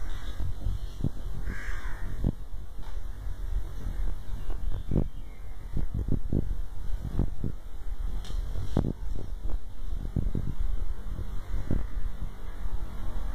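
Steady low hum and rumble with many irregular soft thumps, typical of handling and movement noise on a handheld phone's microphone.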